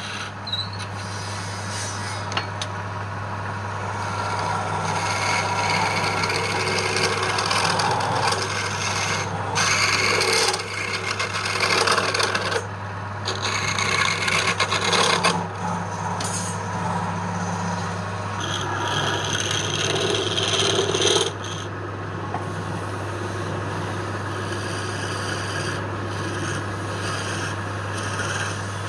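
Wood lathe running with a steady motor hum while wood is worked against the spinning piece, giving a harsh rasping scrape that swells and eases. About two-thirds of the way through, the rasp drops suddenly to a quieter, steadier level.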